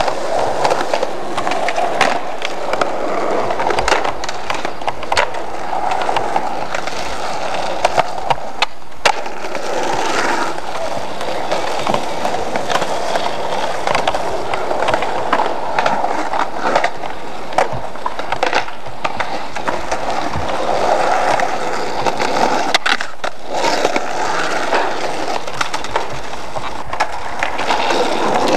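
Skateboard wheels rolling over rough concrete, with sharp clacks of the board hitting the ground from tricks; the loudest clacks come in a cluster about eight to nine seconds in.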